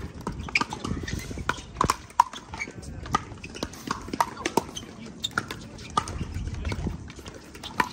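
Pickleball rally: paddles hitting a plastic pickleball back and forth, a fast, irregular run of sharp pops.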